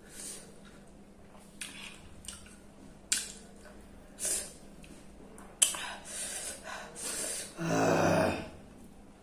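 A woman's sharp hissing breaths through the mouth between bites of very hot chilli-laden food, her reaction to the chilli burn. About eight seconds in comes a short, louder voiced sound from her throat.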